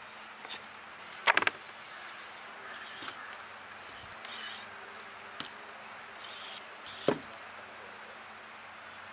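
Knife blade knocking against a wooden chopping block as raw chicken legs are scored: a quick cluster of sharp knocks about a second in, then single knocks near the middle and about seven seconds in, over a steady background hiss.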